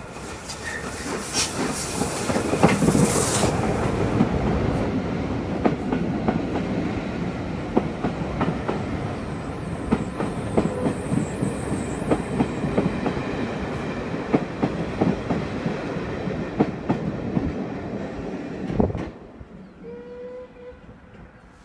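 Caledonian Railway No. 828 steam locomotive and its coaches passing beneath. The sound is loudest as the engine goes under, then the coaches' wheels click over the rail joints, and it falls away sharply near the end.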